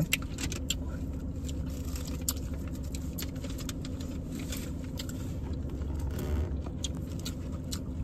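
Steady low hum of a car idling, heard inside the cabin, with scattered light clicks and rustles from handling and eating food.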